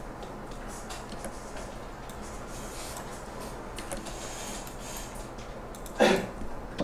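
Faint, scattered computer mouse clicks over a steady microphone hiss and low mains hum; a brief vocal sound near the end.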